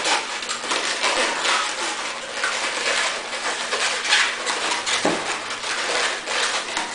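Latex modelling balloon squeaking and rubbing under the hands as it is twisted and handled, in a steady run of short squeaks.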